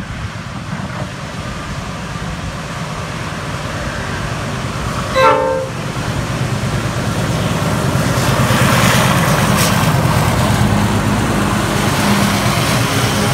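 A freight train's diesel locomotives approach and pass close by, with a low engine rumble that builds from about seven seconds in. A short train horn toot sounds about five seconds in.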